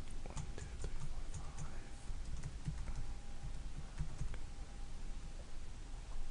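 Typing on a computer keyboard: an irregular run of keystrokes, most of them in the first half and a few more about four seconds in, as an address is keyed into a web form.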